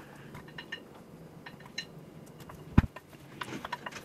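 Light clicks and taps of chopped asparagus pieces being handled and gathered on a plastic cutting board, with one sharper knock about three seconds in.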